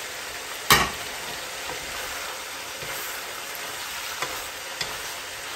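Chicken innards stir-frying in a pan: a steady sizzle, with one sharp knock less than a second in and a few light clicks later on.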